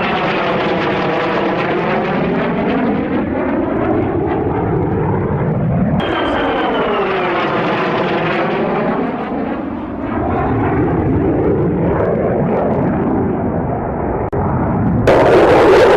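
Jet aircraft flying past twice, each pass a rushing roar whose whine falls in pitch as it goes by. About a second before the end a sudden, louder rush of noise cuts in.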